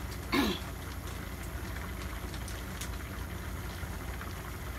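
Pot of broccoli and vegetables simmering on a gas stove: a steady low rumble with faint bubbling and a few small clicks, and a short sound about half a second in.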